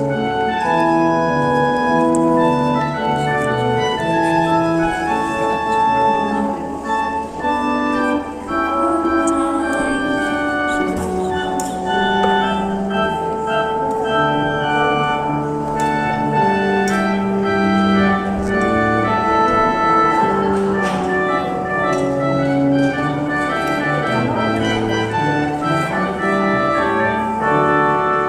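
Organ playing slow music in full chords, the notes held and changing about once a second.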